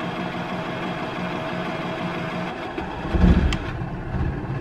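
Cummins Onan QG2500i LPG inverter generator running steadily with a quiet hum in its first seconds after a cold first start. About three seconds in there is a low thump and a click, after which the hum's tone shifts slightly.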